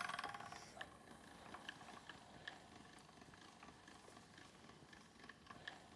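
Near silence: a faint, even rattle from the hand-cranked pasta machine dies away in the first half second, then only a few soft, scattered clicks.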